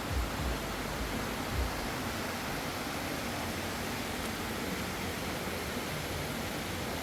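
Steady rushing noise, even and unbroken, with a few low bumps in the first two seconds.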